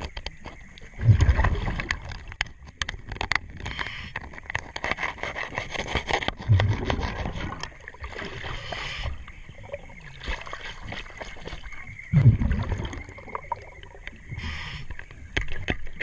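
A scuba diver breathing through a regulator underwater: three gurgling bursts of exhaled bubbles about five to six seconds apart, with hissing inhalations between. Sharp clicks and scratches of a tool scraping and brushing on the boat's hull run throughout.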